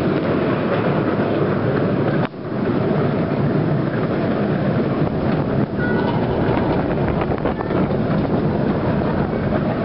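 Ride-on miniature railway train running along its track, heard from a passenger car: a steady rolling rumble of small wheels on the rails, with some wind on the microphone.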